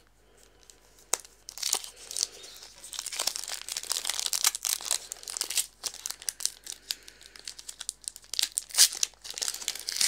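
Booster pack wrapper crinkling and tearing as it is opened, with sharp crackles coming off and on from about a second in.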